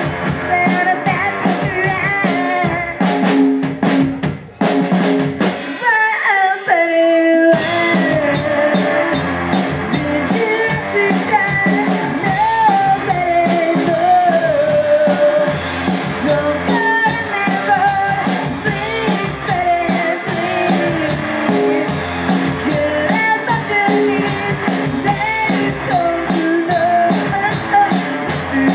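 Live rockabilly band: a woman singing lead over an upright double bass and a drum kit. About five seconds in, the band drops out and her voice carries alone on a sliding, held note. The full band comes back in at about seven and a half seconds.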